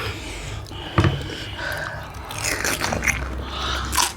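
Crisp pani puri (golgappa) shells crunching as they are bitten and chewed, with a sharp crack about a second in and another near the end.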